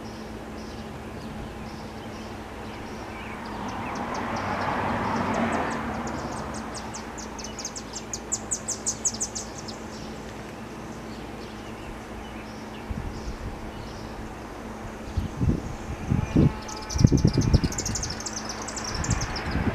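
Federal Signal STL-10 siren coasting down slowly after its blast, a faint steady low hum, its rotor spinning freely on bearings the uploader reckons must be very clean. Birds trill twice, and wind gusts on the microphone in the last few seconds.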